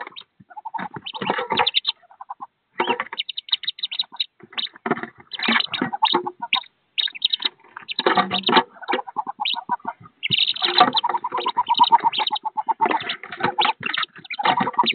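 Wood duck ducklings peeping in rapid, dense bursts with brief pauses, many chicks calling at once.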